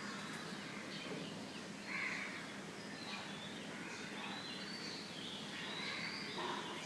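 Several birds chirping and calling in short high notes over a steady background hiss, with a louder call about two seconds in.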